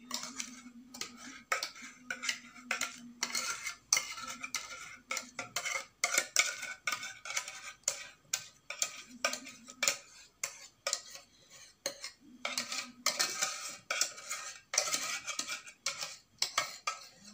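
A utensil scraping and knocking against the inside of a metal saucepan in quick, irregular strokes as thick cream is scraped out of it.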